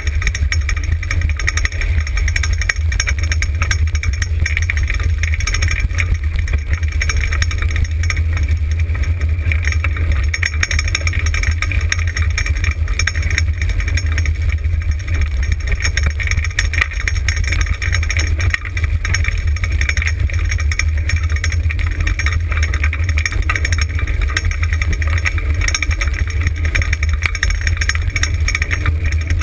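Wheeled dryland dog-sled rig rolling at about 25 km/h over a dirt trail, a loud, steady rumble close to the microphone, mixed with wind noise.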